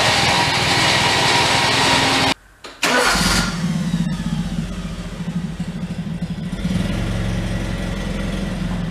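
Volkswagen air-cooled flat-four engine of a homemade tractor running loudly for about two seconds, then, after a short break, idling steadily. The engine is leaking oil heavily at the rear main seal.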